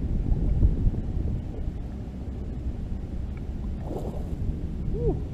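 Wind buffeting the microphone in a low rumble, strongest in the first second. A short splash of water about four seconds in, as the fish is worked in the water at the bank's edge.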